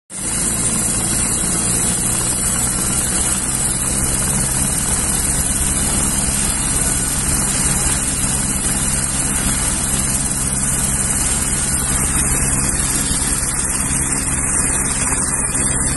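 Helicopter's turbine engine and rotor running steadily while the helicopter sits on the ground: a constant high whine over an even low hum.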